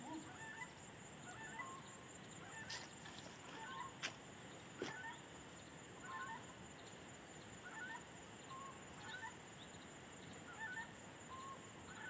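Faint bird calls: short chirping notes repeated about once a second, with a few sharp clicks between about three and five seconds in.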